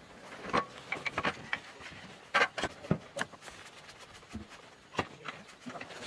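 Scattered knocks, clatters and scuffs, a few of them sharp, at irregular intervals, with no saw or engine running.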